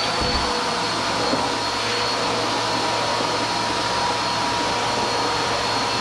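Upright bagged vacuum cleaner running steadily with a constant motor whine as it vacuums spilled potting soil off the floor.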